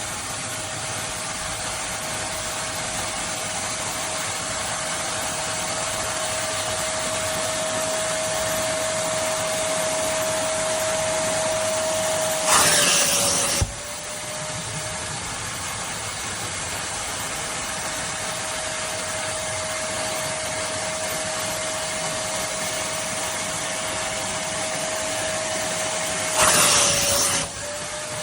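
A Kärcher WD 2 Plus wet/dry vacuum cleaner running steadily, its 1000 W motor giving a steady whine over the rush of air. Twice the rush of air grows louder for about a second while the whine briefly drops in pitch.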